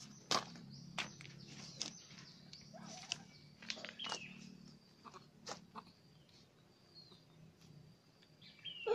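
Pebbles clicking and knocking as a baby monkey and a rabbit move over stony ground, with a few short high chirps.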